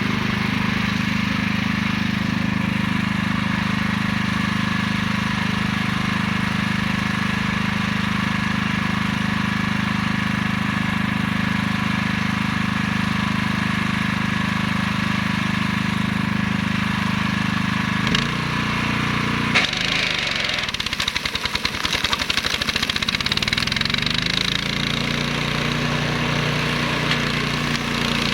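Flail mower's 15 hp Hyundai engine running steadily. About 18 seconds in its note drops, a dense rapid clatter joins for a few seconds, and the engine then settles again at a different steady note.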